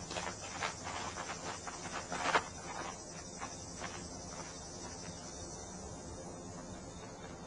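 Insects chirring steadily, with a run of soft ticks over the first two seconds or so; the loudest tick comes about two and a half seconds in.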